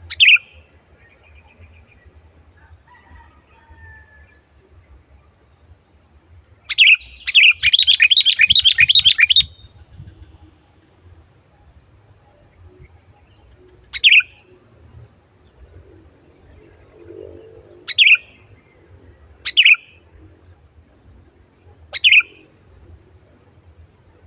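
Sooty-headed bulbul (kutilang) calling loud and clear: a sharp single note, then a rapid chattering run of about a dozen notes about seven seconds in, then four more single notes spaced a few seconds apart.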